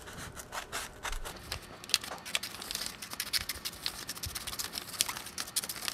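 Scissors cutting lengthwise through a paper Möbius strip: an irregular run of small, quick snips and clicks of the blades through the paper.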